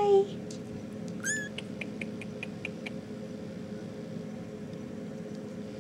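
A 4½-week-old RagaMuffin kitten gives one short, high mew about a second in, followed by a run of faint light clicks.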